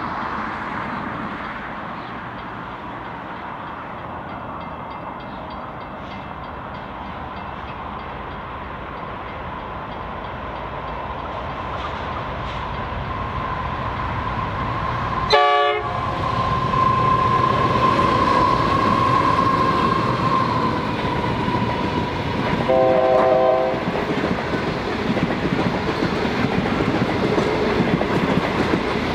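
Passenger train hauled by NR-class diesel-electric locomotives drawing near, its engine and wheel noise growing steadily louder. A steady high-pitched tone runs for several seconds past the middle, and the locomotive's horn sounds a short blast a few seconds later.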